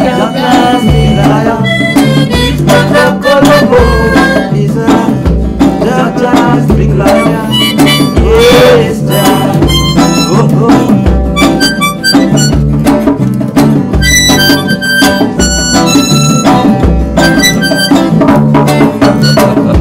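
Live acoustic band playing an instrumental passage: a harmonica leads over strummed acoustic guitars and a steady djembe beat.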